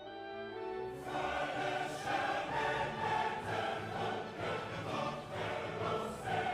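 Background music: a choir singing sustained chords over an orchestral backing, swelling in fullness about a second in.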